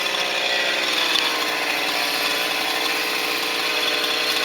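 Chainsaw running steadily at high revs, cutting into wood.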